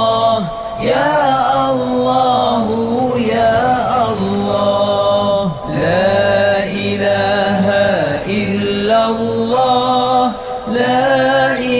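A voice chanting Islamic dhikr (zikir) in Arabic, slow melodic phrases of about two to three seconds each following one after another.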